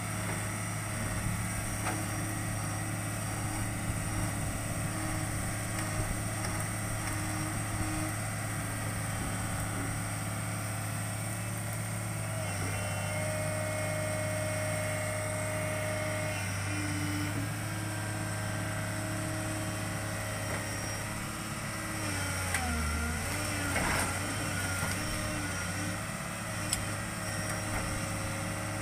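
Hitachi excavator's diesel engine running steadily, its pitch dropping for a couple of seconds about three quarters through as it takes hydraulic load.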